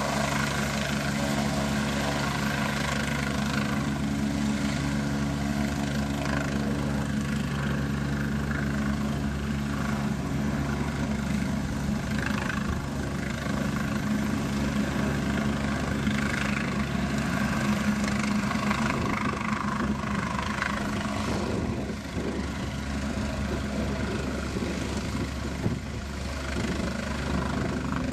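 Helicopter running steadily, its engine and rotor giving an even drone of several steady tones.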